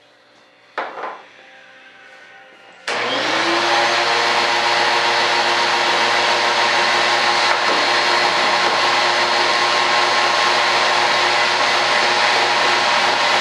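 A shop vacuum switched on about three seconds in: its motor spins up and then runs steadily while the hose is passed over a foam wing core. A brief knock comes about a second in.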